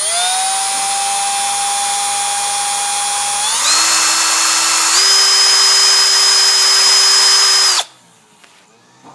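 Electric hand drill running with a steady motor whine that steps up in pitch about three and a half seconds in and again slightly about five seconds in, then stops abruptly near the end.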